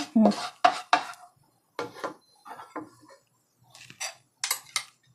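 Kitchen utensils knocking and clinking: a wooden spatula tapping in a non-stick wok and a spoon rattling in a glass bowl as it is picked up, about a dozen short, irregular knocks.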